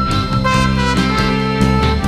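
Instrumental background music with a steady beat and long held melody notes.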